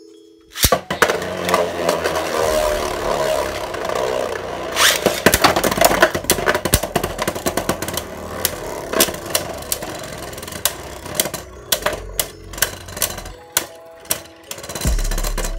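Two Beyblade Burst metal-and-plastic spinning tops, Venom Diabolos and Zwei Longinus, start suddenly about half a second in and grind around a plastic stadium with repeated sharp clacking hits as they collide. The hits come further apart near the end as the tops slow.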